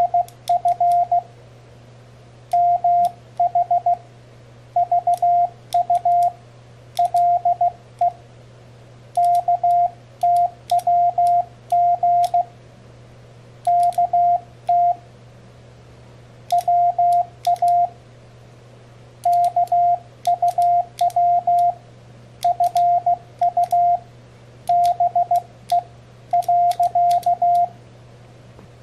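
Morse code sidetone, a steady tone of about 700 Hz, keyed in short groups of dots and dashes from a homemade CW paddle key built from two microswitches. The switches click sharply along with the beeps, over a faint steady low hum.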